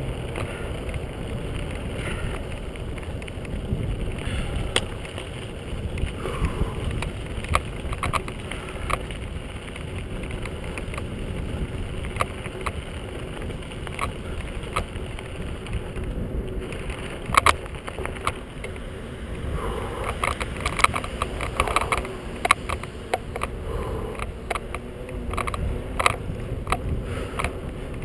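Bicycle rolling along a paved road shoulder: steady tyre and wind rumble on the camera, with frequent sharp clicks and rattles from the bike and mount jolting over bumps, which grow busier in the last third as the bike reaches rough ground and a gravel drive.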